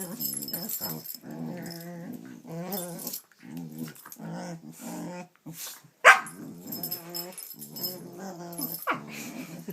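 A dog making a run of short, pitched growly grumbles, one after another, with a sharp loud bark about six seconds in and another near the end.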